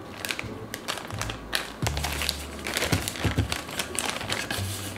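Thin plastic zip bag crinkling and crackling as it is squeezed and pulled open by hand, over background music with a steady bass line.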